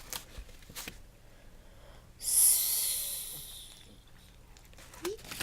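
A person's long breath out, starting suddenly about two seconds in and fading away over about a second and a half, after a few faint clicks.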